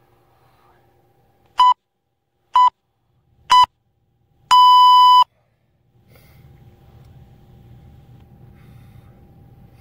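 Interval timer beeping a countdown: three short beeps about a second apart, then one longer beep, marking the end of a 20-second Tabata work interval and the start of the rest.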